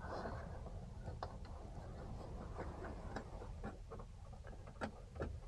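Faint, irregular light clicks and ticks from hand work on a car's interior trim and fittings.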